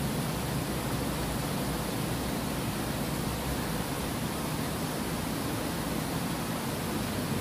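Steady rushing of water spilling over a low concrete weir into a pool.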